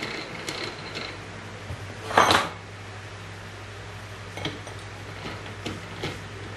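Metal clinks and one short, loud scraping clatter about two seconds in as a steel lathe chuck is handled and fitted on the headstock, over a steady low hum.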